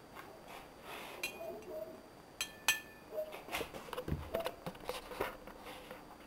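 Light handling noises: scattered clicks and taps, including two short ringing clinks like glass or metal touching glass about two and a half seconds in, then a quick run of soft taps with one low knock around four seconds in.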